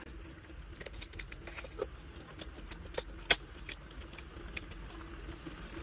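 Soft, scattered wet clicks and smacks of a mouth eating braised tiger-skin chicken feet, with one sharper click about three seconds in.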